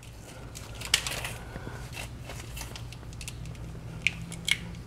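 Light handling sounds of running-board LED wiring being worked by hand: soft rustling with a few small sharp clicks, one about a second in and two near the end, over a faint steady hum.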